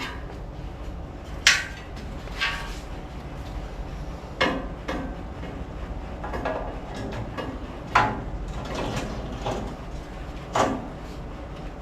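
Metal clanks and knocks from hand tools and engine parts being handled, about five separate strikes at irregular intervals, each with a short ring.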